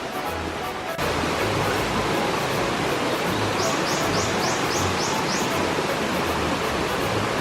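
Steady rush of a stream and waterfall in a rocky gorge, growing louder about a second in, with background music underneath and a quick run of about seven high chirps near the middle.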